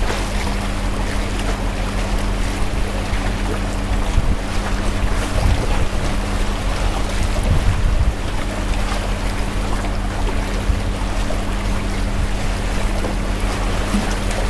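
Wind buffeting the microphone over choppy water washing against a floating fishing raft's pilings, with a steady low hum underneath; the gusts are strongest around the middle.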